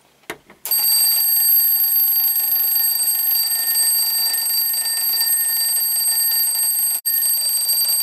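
A twin-bell alarm clock, rigged as a door-intrusion alarm, goes off after a short click. It rings loudly and without pause, with one momentary break about seven seconds in.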